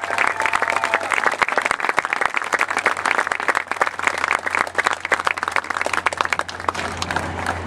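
Audience clapping and applauding in a dense patter of claps, thinning out near the end.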